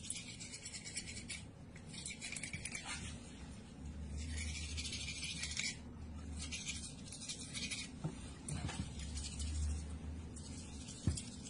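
Toothbrush bristles scrubbing a cat's teeth: soft, scratchy brushing in short spells of about a second, with pauses between.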